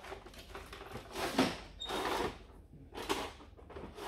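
A pencil scratching on wood in four or so short strokes, under a second apart.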